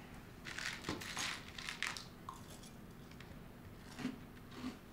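Soft crunching and crinkling of cereal being eaten from a bowl at a table, a cluster of short crackles in the first two seconds with a light click about a second in, then only a couple of faint ones.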